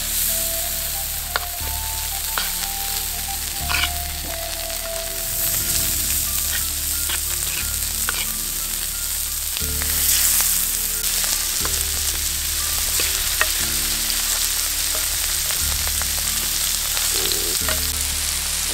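Sardines coated in red chilli masala frying in hot oil on a flat iron tava: a steady sizzle and crackle of bubbling oil, with a few sharp light clicks in the first few seconds.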